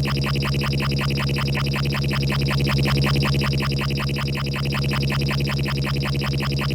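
Synthesized sci-fi engine sound played on a software synthesizer: a steady low hum with a fast, even pulsing flutter over it, like a spacecraft engine at a constant speed, run through distortion.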